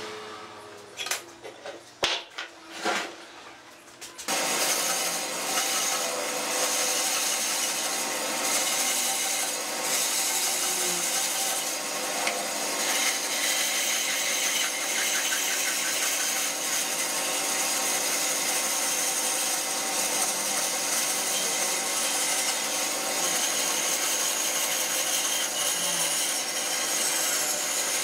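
A few short scratches and taps of a marker tracing a template on wood, then, about four seconds in, a bandsaw starts suddenly and runs steadily, its blade cutting curves through a thick wooden beam.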